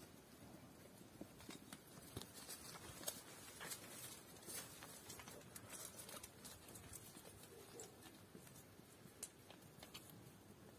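Faint, irregular scuffs and ticks of footsteps on a dirt and stone path, from sheep's hooves and the person walking behind them.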